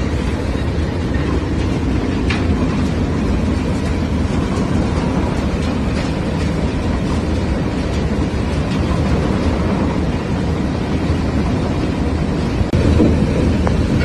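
Mineral washing plant running: a steady heavy rumble of motors and churning sand and water, with the paddles of a dual-shaft washing machine working the slurry. It gets a little louder near the end.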